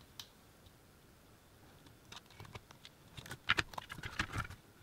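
Faint small clicks and scrapes of a metal pick prying and tapping at a monitor's circuit board and the back of its LCD panel. One click comes just after the start, then a quick irregular run of clicks from about two seconds in, busiest near the end.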